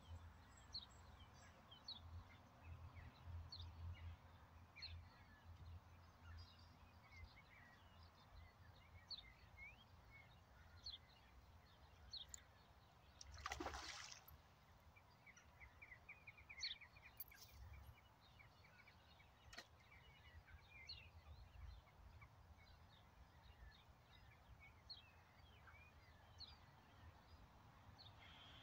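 Near silence: faint, scattered bird chirps, with one brief rushing noise about halfway through.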